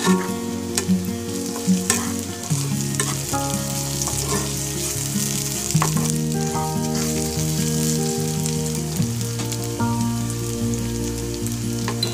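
Sliced onions sizzling as they fry in hot oil in a pan, with a spatula stirring them and knocking against the pan several times. Soft instrumental background music plays throughout.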